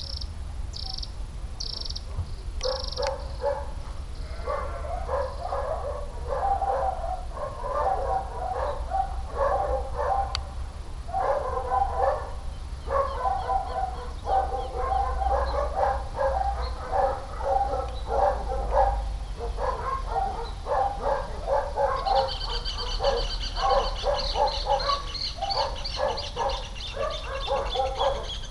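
A dog barking over and over in runs of short barks. For the last few seconds, a bird's rapid high trill sounds over the barking.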